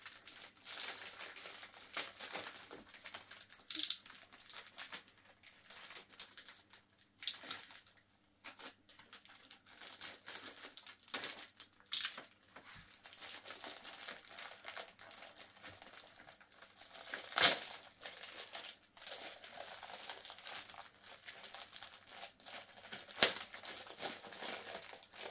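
Clear plastic wrapping around a stack of LEGO instruction booklets being torn open and handled by hand: irregular crinkling with scattered sharp crackles, the loudest about two thirds of the way through and near the end.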